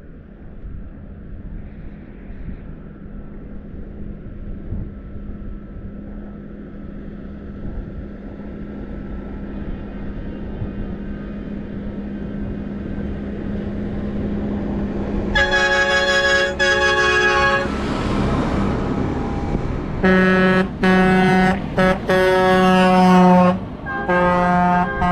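Tractor engines approaching on the road, growing steadily louder, then a vehicle horn blown in a long blast, a tractor driving past, and a run of short horn toots near the end.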